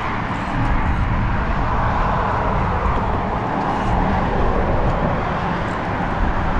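Road traffic on the adjacent highway bridge: steady tyre and engine noise that swells as a vehicle passes in the middle seconds, with wind rumbling on the microphone.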